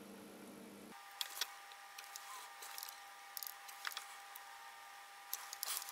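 Faint scattered clicks and light taps of small wires, switch leads and a soldering iron being handled during soldering, with a quick cluster of clicks near the end. A faint steady tone comes in about a second in.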